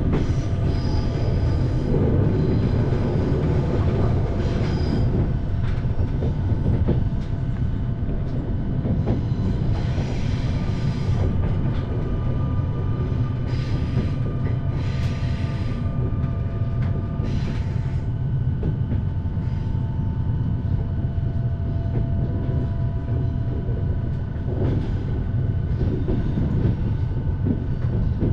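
Passenger train running, heard from inside the carriage: a steady low rumble with a constant motor hum, and a few short swells of hiss about halfway through.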